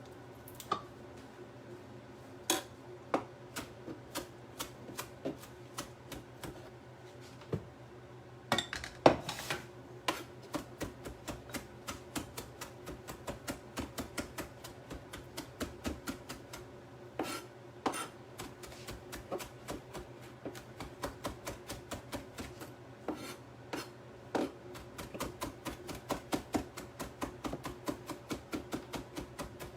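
Kitchen knife chopping on a cutting board: scattered knocks at first, then quick even strokes, about three or four a second, from about ten seconds in.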